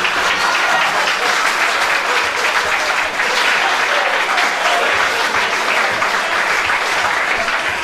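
Live audience applauding steadily, a dense patter of many hands clapping in response to a punchline.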